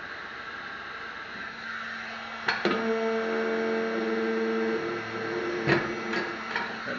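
Heat gun running with a steady hum. A few sharp clicks come about two and a half seconds in and again near the end.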